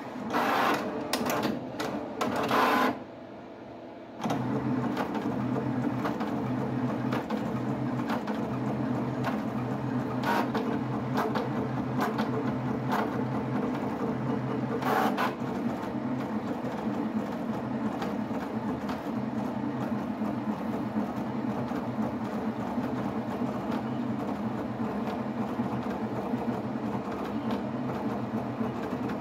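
HP 7550A pen plotter plotting in demo mode. It opens with a few loud, sharp mechanical strokes over the first three seconds, falls quiet for about a second, then settles into a steady whir of its drive motors moving the paper and pen carriage, with an occasional click.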